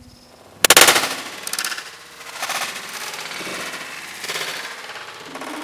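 A portable TV's plastic casing smashed by a heavy swung blow: a loud crash with rapid rattling just over half a second in, followed by several shorter crashing, rattling bursts.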